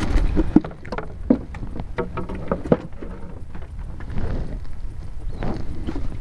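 Small wooden rowing boat on the water: scattered light knocks and taps, most of them in the first three seconds, over a low steady rumble, while a caught fish is handled and unhooked.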